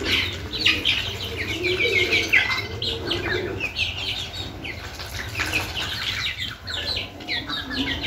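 Young chickens peeping over and over in short falling chirps, many birds at once, with a few lower calls underneath.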